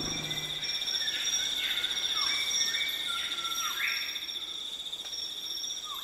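Rainforest insect chorus: a steady shrill in two continuous high tones. A few short animal calls, each dropping in pitch, come in about one to four seconds in.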